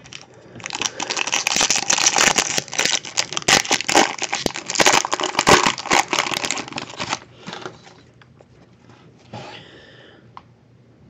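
Foil wrapper of a baseball card pack being torn open and crinkled: a dense crackling that starts just under a second in, runs for about six seconds and then stops.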